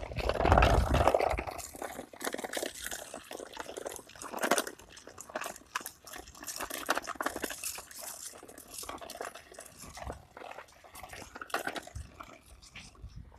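Irregular crunching and rustling on the ground, a quick scatter of small crackles and clicks with no steady rhythm. There is a louder low rumble in the first second or so.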